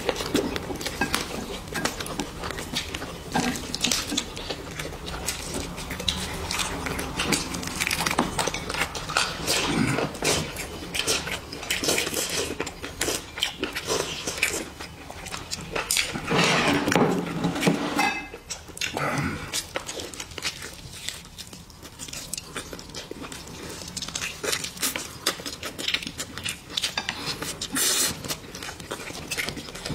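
Close-up eating sounds: wet chewing and gnawing of meat off a chicken leg bone, with many small clicks of chopsticks and dishes. There is a louder stretch of eating noise a little past halfway.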